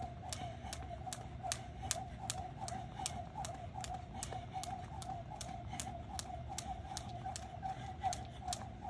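A jump rope slapping the pavement on each turn in a steady rhythm, about two and a half times a second, over a continuous wavering mid-pitched tone.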